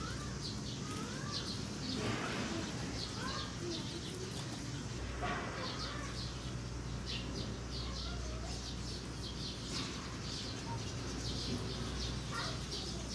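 Small birds chirping again and again over a steady low background hum.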